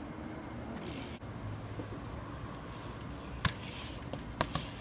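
BMX bike knocking on a concrete curb: three short sharp clicks, one about three and a half seconds in and two close together near the end, over steady low street noise.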